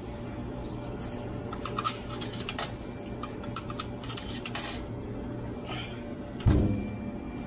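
Commercial Maytag top-loading washer just started: a steady hum with irregular light clicks and clatter, then the washer lid is shut with a loud thump about six and a half seconds in.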